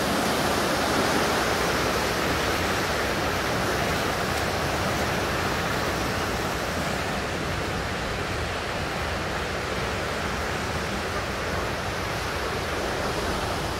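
River rapids rushing steadily, growing a little quieter and duller about halfway through.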